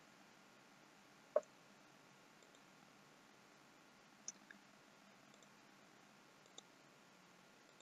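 A few sharp computer mouse clicks over near silence: one about a second in, the loudest, then a quick pair a little past the middle and a last one near the end.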